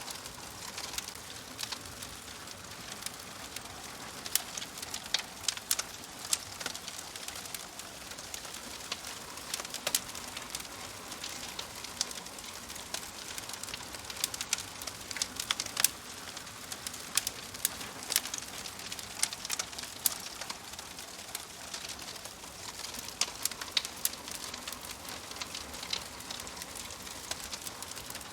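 Wood fire crackling in a wood-burning stove: a steady soft hiss broken by frequent sharp pops and snaps.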